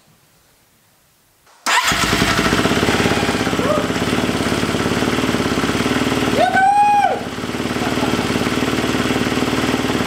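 Husqvarna FE 350 dirt bike's single-cylinder four-stroke engine, bored out to 366, running on its first start after a full rebuild. It comes in abruptly about two seconds in and then runs steadily.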